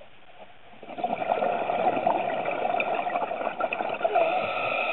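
Scuba diver exhaling through a regulator underwater: a loud gush of bubbling and gurgling starts suddenly about a second in and lasts several seconds.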